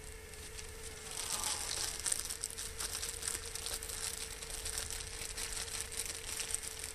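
Sausages sizzling in a hot cast-iron skillet: a dense, crackling hiss that swells about a second in and keeps going.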